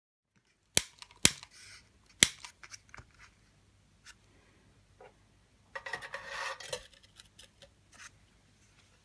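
Sharp metallic clicks and small knocks as a small three-wick spirit burner is handled, three loud ones about a second and two seconds in, then about a second of scraping as the burner tin slides across a table toward the firebox of a toy steam engine.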